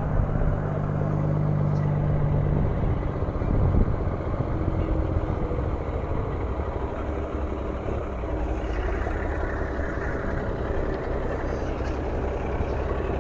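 Semi-truck's diesel engine running at idle, a steady low rumble.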